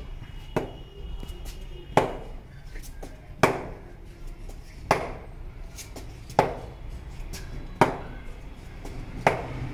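Cricket bat hitting a leather ball hung on a string: seven sharp knocks about one and a half seconds apart, each with a short ringing tail, the first one lighter.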